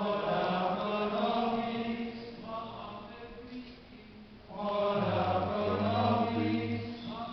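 A procession of voices singing a religious chant in two phrases, with a lull of about two seconds between them.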